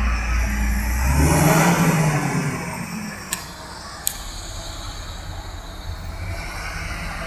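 Heavy diesel machinery on a logging site: a deep engine hum close by for the first second, a brief whooshing rush, then a lower steady engine drone with two sharp clicks.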